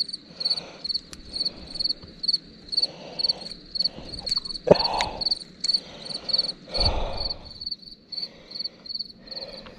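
Cricket chirping steadily, about three chirps a second, with scattered clicks and rustles of hands handling a hooked crappie and tackle.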